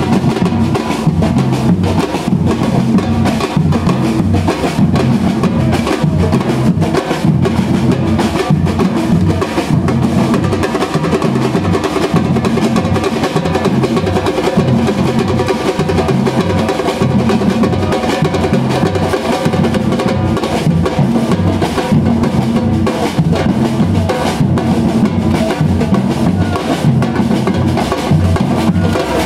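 A street drum band playing together: large silver surdo-style bass drums struck with mallets, with tall hand drums and stick drums, keeping a dense, steady rhythm without a break.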